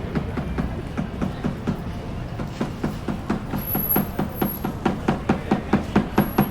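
Footsteps clicking on hard paving, about three to four steps a second, growing louder in the second half, over a low background hum.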